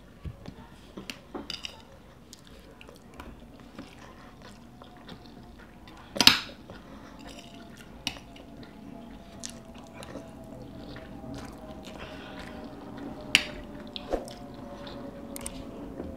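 Two people eating rice and stew: chewing and mouth sounds, with metal spoons clicking and scraping on ceramic plates. The loudest spoon click comes about six seconds in, another near thirteen seconds.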